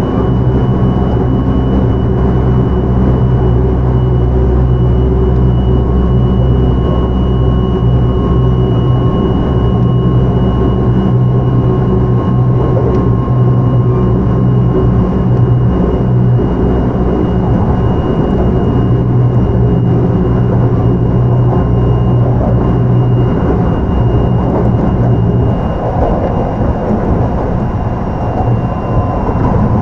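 Kintetsu 3200-series electric train with an early Mitsubishi GTO-VVVF inverter, heard from inside the car while running: a steady rumble of wheels on rail with a constant high whine that sinks slightly in pitch. Near the end the deep hum eases and the rumble grows a little quieter.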